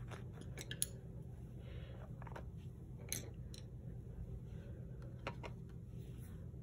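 Screwdrivers being set down one by one on paper over a countertop: a few faint, scattered clicks and taps over a steady low hum.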